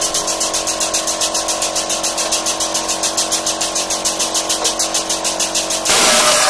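Powered pump driving a hydraulic bottle jack under load, pulsing steadily about seven times a second with a steady hum underneath. Near the end a sudden loud burst of noise as the seam weld cracks and the welded steel plate breaks free.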